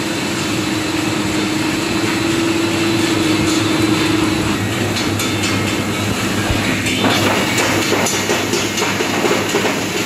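Automatic dishwasher-tablet press and pillow packing line running, the packer set to about 250 packs a minute: a steady mechanical whir with fast, continuous clatter. A steady hum runs through the first half, and the clatter grows louder and sharper from about seven seconds in.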